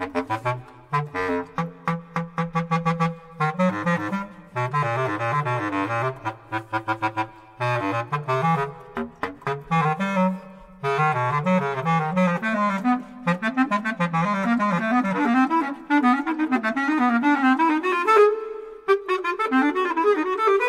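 Solo bass clarinet playing quick runs of notes in its low register, broken by a few short pauses, the line climbing gradually higher through the second half.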